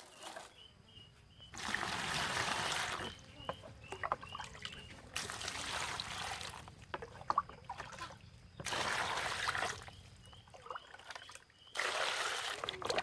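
Water splashing and pouring in four bursts of about a second and a half each, with small clatters between them.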